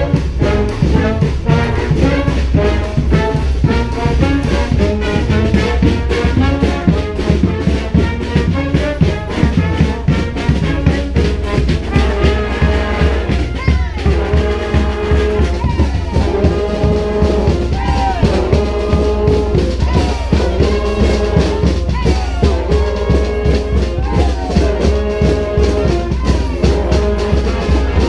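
Street brass band playing a New Orleans-style number: trombones and trumpets over a steady, driving drum beat. From about twelve seconds in, the horns repeat a riff of held notes that fall off in pitch at the end, roughly every two seconds.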